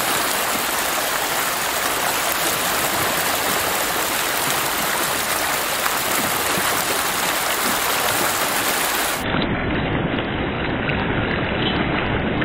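Steady rush of flowing river water. About nine seconds in the sound turns duller and deeper.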